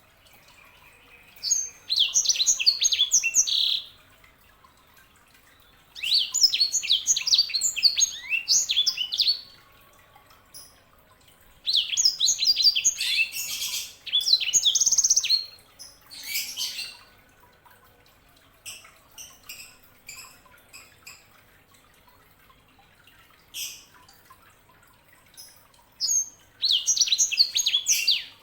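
Yellow-fronted canary (sanger) singing: four bursts of fast, high twittering song, each two to four seconds long, with short single chip notes in the gap between them.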